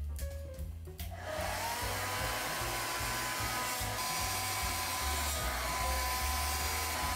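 Handheld hair dryer switched on about a second in, its motor whine rising briefly as it spins up, then blowing steadily with a rush of air. Background music with a low bass runs underneath.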